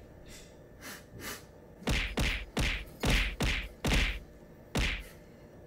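A large plastic pouch of honey powder being handled: a few faint rustles, then about seven loud rustling thumps in quick succession over some three seconds.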